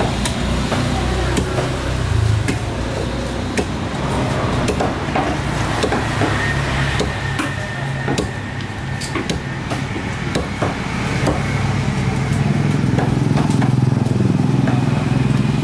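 Knife blade chopping through fish onto a wooden chopping block: a run of irregular sharp knocks. Under them a motor engine runs steadily, growing louder over the last few seconds.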